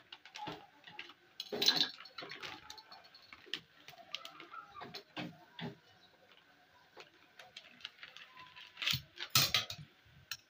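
Plastic zip-lock bag crinkling and rustling as hands handle it and pull its seal open, in scattered small crackles, with two louder crinkles about a second and a half in and near the end.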